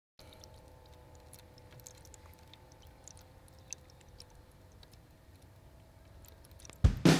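Faint background with a few soft ticks and a faint steady hum. Just before the end, loud music with drum beats and guitar cuts in.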